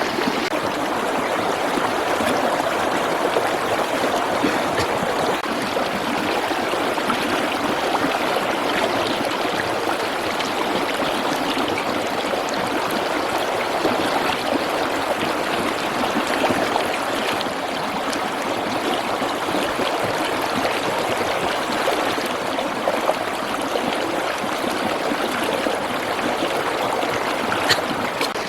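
Steady rushing noise of running water, with a few light clicks and one sharper click near the end.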